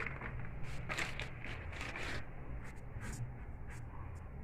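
Salt being poured into a large metal sufuria: a dense patter of grains with many small ticks, thinning out a little after two seconds in.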